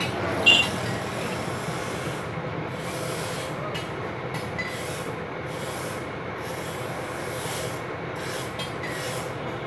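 Steady background noise with intermittent scraping and rubbing as hands handle a CRT TV circuit board on the bench, and one sharp knock about half a second in.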